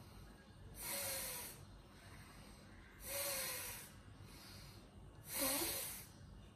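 A woman breathing out forcefully three times, about two seconds apart, each a short rush of air. The exhales are timed to a yoga shoulder exercise, breathing out as the outstretched arms push backward.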